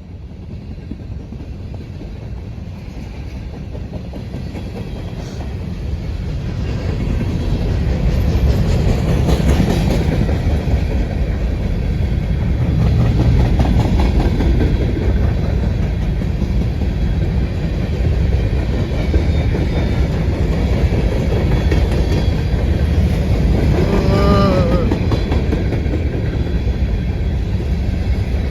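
CSX grain train approaching and then passing close by: a low rumble that grows louder over the first several seconds, then runs steadily loud with the clack of wheels on rail joints. About 24 s in there is a brief pitched squeal.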